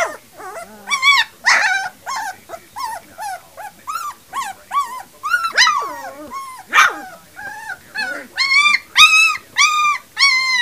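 Three-week-old puppies yipping and whimpering in a run of short, high-pitched calls. Near the end there is a steady series of louder yips, about two a second.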